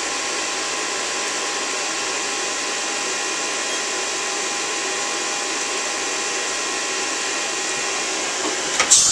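Steady hiss of compressed air escaping at the spindle of a Hyundai SPT-V30T machining center. The air stays on to hold the pull-stud drawbar released while the head is up in the manual tool-change position. Near the end a sharp click comes, and the hiss turns louder and higher.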